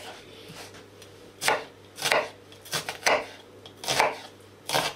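Kitchen knife slicing an onion into thick strips on a cutting board: about six unhurried cuts, each ending in a knock of the blade on the board, starting about a second and a half in.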